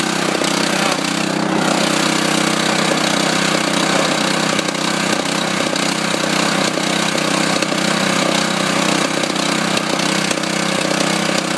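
Small 8-horsepower gasoline engine of a concrete mixer running steadily at a constant speed, already warm.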